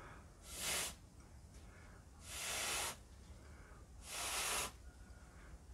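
Three puffs of breath blown through a drinking straw onto wet acrylic pour paint, each under a second long with short pauses between, pushing the paint outward in the bloom technique.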